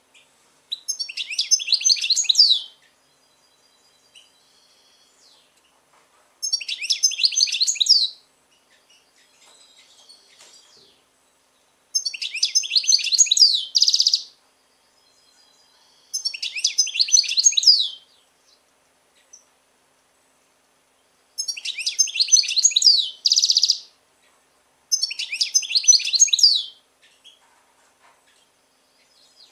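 European goldfinch singing: six rapid twittering phrases of about two seconds each, separated by pauses of a few seconds, with some phrases ending in a drawn-out buzzy note.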